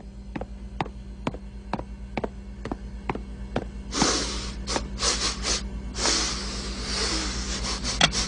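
Cartoon pig's footsteps tapping evenly about twice a second over a low hum, then, from about four seconds in, a run of hissing huffs and snorts.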